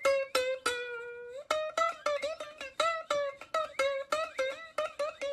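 Background music: a plucked string instrument, ukulele-like, playing a quick run of notes at about four a second, with one longer held note about a second in.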